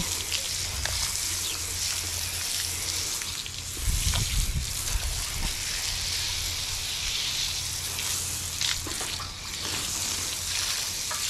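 Garden hose pistol nozzle spraying water onto a horse's wet, soapy coat: a steady hiss of spray. A brief low rumble about four seconds in.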